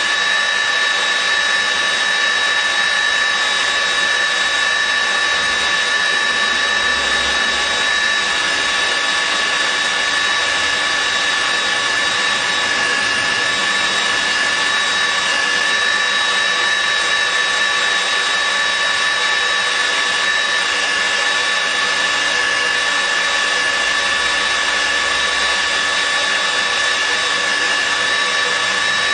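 Steel-drilling machine running continuously under power: a steady motor whine with several fixed high tones over an even mechanical noise.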